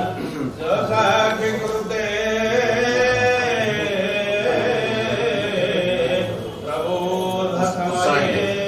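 Voices singing a devotional chant in long, sustained melodic lines.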